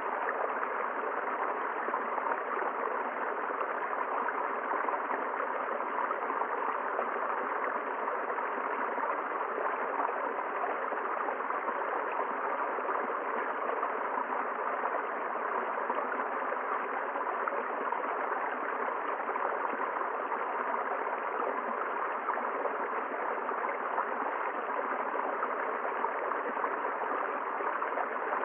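River water flowing steadily, an even, continuous rushing with no breaks or single splashes.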